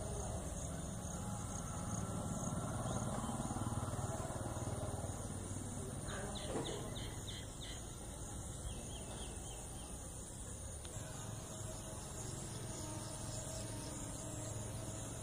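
Outdoor background noise, a low steady rumble, with a bird chirping a few times in a quick run about six seconds in.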